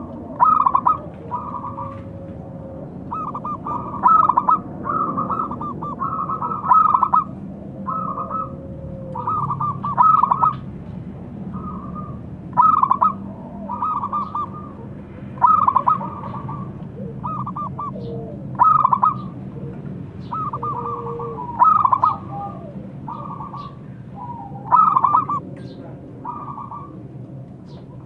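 Zebra dove (perkutut) cooing: bursts of quick, clipped coo notes repeated every second or two.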